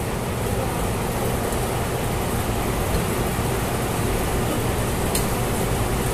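Steady room noise of a restaurant dining room: a low hum with an even hiss over it, and a faint click about five seconds in.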